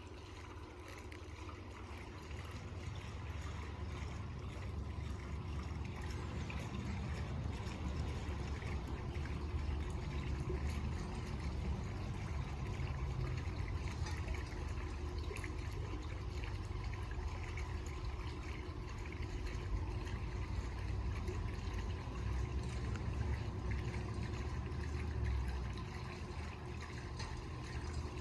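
Tubular motor of a motorized roll-down hurricane screen running steadily, a low rumble with a faint steady hum, as the screen rolls.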